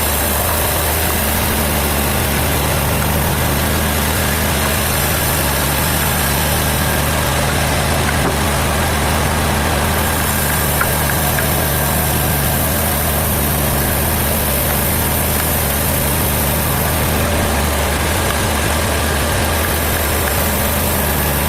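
Sawmill machinery's engine running steadily at idle, a low, even hum with no cutting heard.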